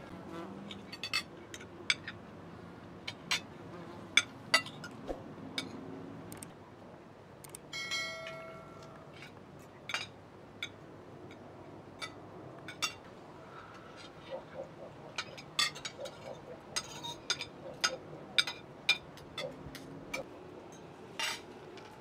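Metal spoons and forks clinking and scraping against glass plates during a meal, in irregular sharp clicks throughout.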